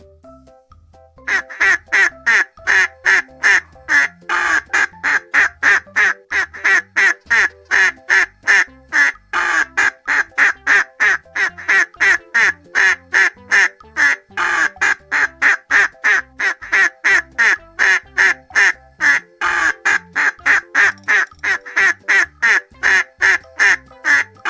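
Duck quacking over and over at about three quacks a second, starting about a second in.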